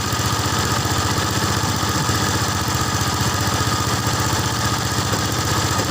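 A small engine running at a steady speed, with a constant hum and rapid, even firing pulses.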